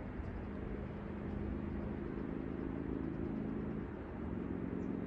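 Steady low hum of a distant engine over a soft continuous rush of outdoor background noise. The hum dips briefly about four seconds in.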